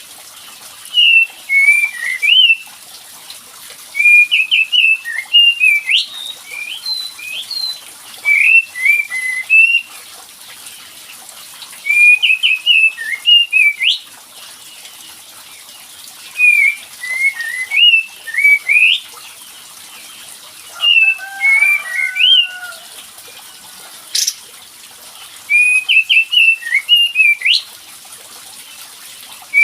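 Song of a kapas tembak bulbul: short bursts of quick, whistled chirping notes, repeated every two to three seconds. A lower warble comes in briefly in the last third, and a single sharp click about 24 seconds in.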